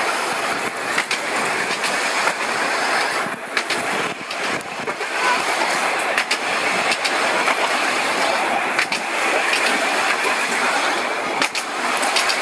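Electric tram running along its track: a steady rumble and rattle of steel wheels on the rails, with occasional sharp clicks.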